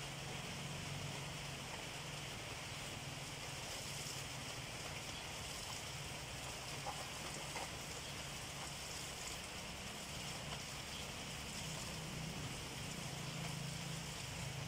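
Steady outdoor background noise: an even hiss with a low hum underneath and a few faint ticks.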